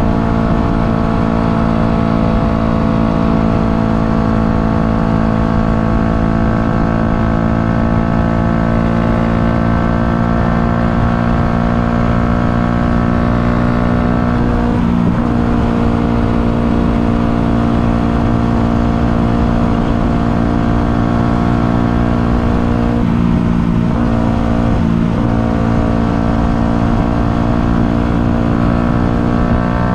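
Yamaha MT-125's single-cylinder four-stroke engine running hard, its pitch climbing slowly over the first half. There are brief dips in pitch about halfway through and twice more near the end.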